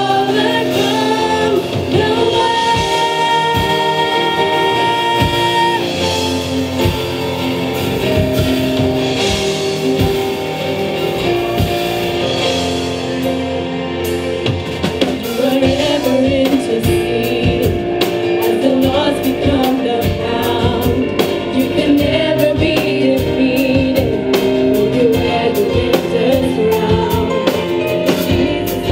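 Live gospel praise and worship music: women singing a melody into microphones over a Roland Fantom keyboard and band. A steady beat with deep bass fills in about halfway through.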